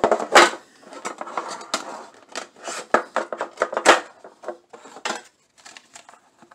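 Clear plastic card display insert being pried out of a metal Pokémon card tin and handled: a run of sharp plastic clicks, clacks and scrapes, loudest in the first four seconds and trailing off to scattered light taps after about five seconds.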